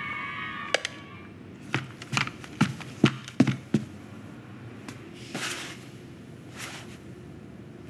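Animated-film Foley effects: a squeaky whine that fades out in the first second, then a quick run of about seven sharp knocks, then two soft swishes.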